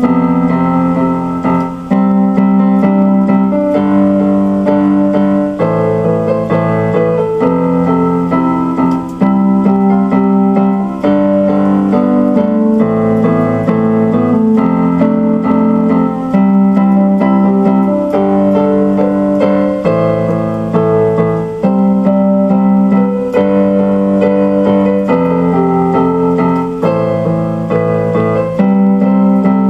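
Instrumental keyboard piano music, sustained chords changing about every one to two seconds over a steady bass line.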